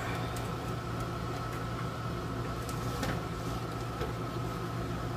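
Room air conditioner running with a steady hum and a faint high whine, with a few light clicks and taps as a plastic radio cabinet is turned over and handled.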